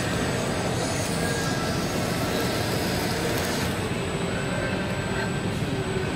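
Handheld gas blowtorch flame hissing steadily, cut off about three and a half seconds in, leaving a steady low background hum.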